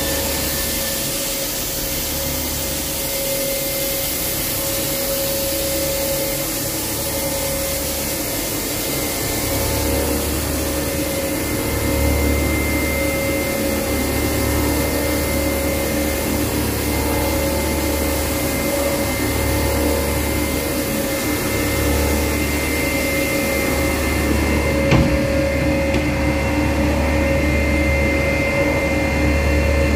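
CNC vertical machining centre cutting a steel die block: the spindle and end mill run with steady whining tones over a hiss of coolant, and a low hum swells and fades every second or two. A single click near the end, after which the hiss is duller.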